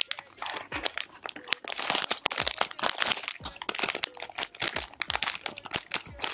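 Clear plastic packaging bag crinkling as hands handle and squeeze the plush toy sealed inside it: a dense, uneven run of sharp crackles.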